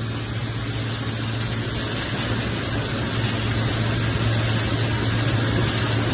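A lathe running steadily, with a constant low motor hum under an even whir of cutting noise.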